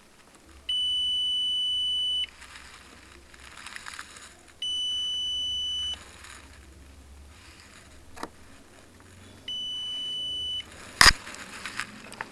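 Digital multimeter's continuity buzzer beeping three times, each a steady high tone of about one to one and a half seconds, as the probes touch the Peltier module's leads: the beep shows the module conducts, so it is not burnt open and may still be good. A sharp click near the end.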